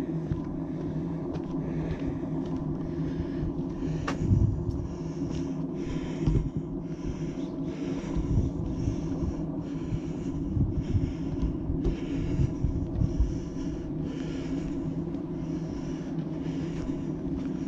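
Footsteps of a walking hiker on a trail, a little under two steps a second, over a steady low rumble with a few low thumps.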